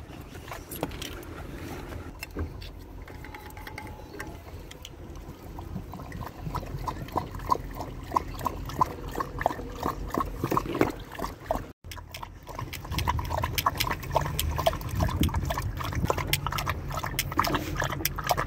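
Dogs lapping water from a collapsible bowl, a quick regular run of laps, about three or four a second.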